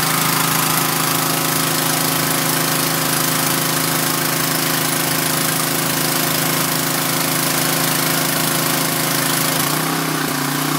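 Pressure washer running steadily, its fan-pattern spray hissing. Near the end the spray stops and the machine's note shifts.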